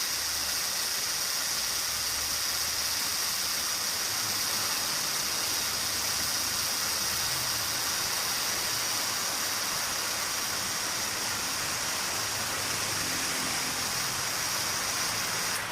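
Moderately worn air-conditioning compressor of a 2018 Subaru Forester running with the engine idling: a steady high-pitched whine over the low idle, which is the abnormal compressor noise of the wear. The whine stops suddenly near the end.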